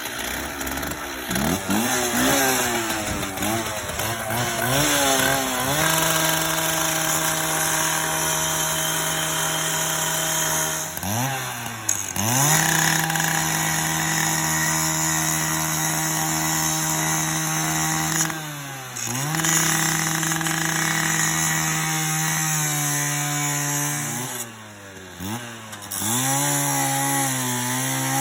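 Power tool cutting through steel brackets on a plow frame. Its motor runs at a steady pitch, sagging under load and winding back up several times: unsteady in the first few seconds, then about 11 and 18 seconds in, and twice near the end.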